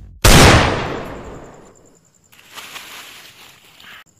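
A single loud pistol gunshot that cracks in abruptly just after a split second of silence and dies away over about a second and a half.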